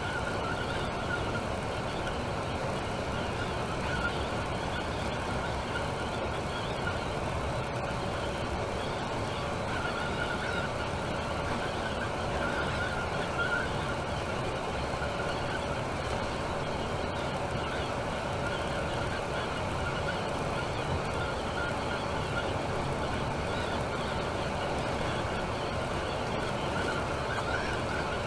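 Temsa Maraton coach driving at a steady speed on a motorway, heard from aboard: a continuous, even mix of engine and road noise with a faint steady whine.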